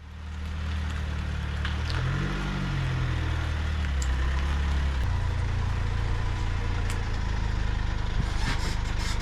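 A motor vehicle engine running steadily, its pitch shifting briefly about two seconds in before settling into an even low drone.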